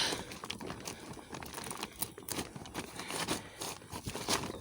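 Crinkling and rustling as something is handled, with many short, irregular light clicks.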